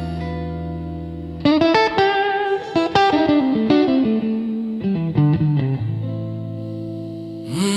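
Slow blues music led by an electric guitar with effects: a held low note rings and fades, then a run of picked notes comes in about a second and a half in, settling on another held note. A voice starts humming right at the end.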